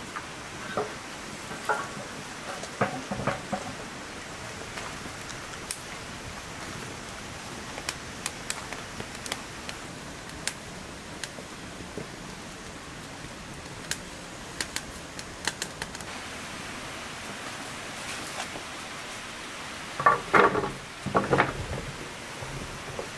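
Wood fire crackling in a stove made from stacked steel wheel rims: a steady hiss with scattered sharp pops. Near the end, a louder clatter as raw potato sticks are tipped from a metal tray into a metal bowl.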